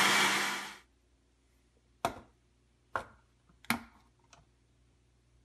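Juiceman JM3000 blender motor running, then winding down and stopping within the first second. It is followed by four short plastic clicks and knocks as the blending cup is handled and lifted off the motor base.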